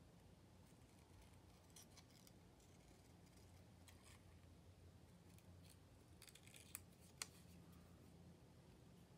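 Near silence with faint scattered clicks and rustles of paper craft work: paper pieces and tools handled on a cutting mat. Two sharper clicks come about seven seconds in.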